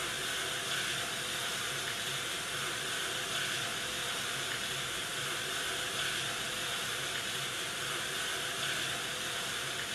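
Steady hissing noise with faint held tones underneath, unchanging throughout.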